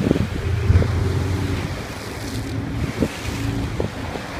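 Waves washing and splashing against rocks, with wind buffeting the microphone and a low drone underneath.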